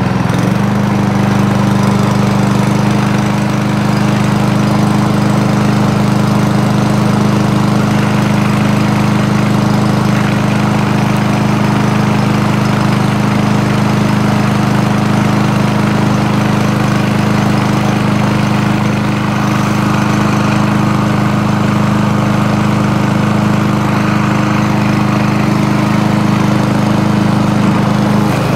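Honda HRB 475 walk-behind lawn mower's 135 cc Honda GXV140 single-cylinder four-stroke engine running at a steady speed. Its pitch steps up slightly right at the start, then holds even.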